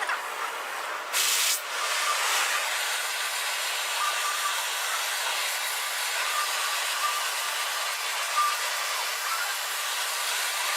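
Gas torch flame hissing steadily as it heats the spacer ring on a crankshaft to loosen it, with a short louder burst of hiss about a second in.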